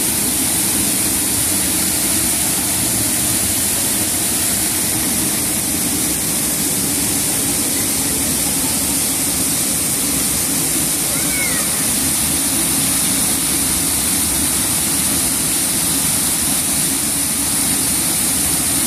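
Water of a wall fountain falling in thin streams from the top edge and splashing onto wet paving below: a steady, unbroken splashing hiss.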